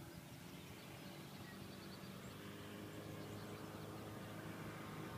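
Distant engine and propeller of a Cygnet SF-2A homebuilt light aircraft at takeoff power on its takeoff roll: a faint steady hum that slowly grows louder as the plane approaches.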